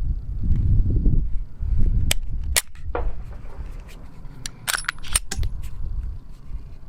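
Glock 43X 9mm pistol firing a string of about half a dozen shots at uneven intervals, starting about two seconds in. Wind rumbles on the microphone before the shooting begins.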